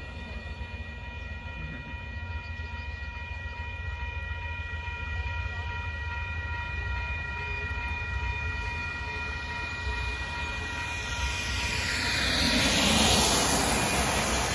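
Railroad crossing bell ringing steadily while the gates go up behind the departed train, over a low rumble; the bell stops about eleven seconds in. Then a car's tyres swish past on the wet road, growing loud near the end.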